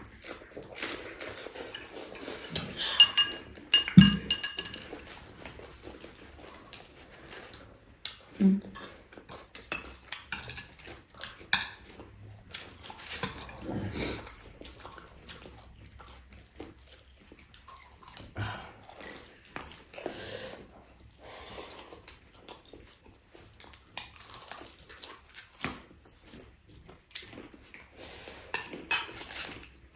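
Cutlery and dishes clinking during a meal: scattered short, irregular clinks and knocks, a little louder in the first few seconds.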